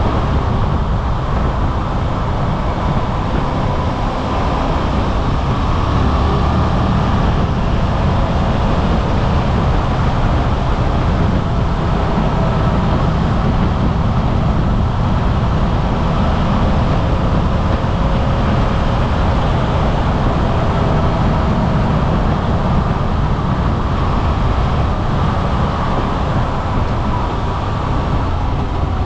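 Suzuki V-Strom 800RE parallel-twin engine running steadily while the motorcycle is ridden, heard from a handlebar-mounted camera mixed with steady wind and road rush.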